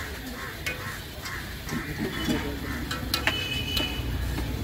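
Onion pakoda frying in deep oil in a large iron kadai, the oil bubbling and sizzling steadily, with a few sharp clicks of the metal skimmer against the pan in the second half.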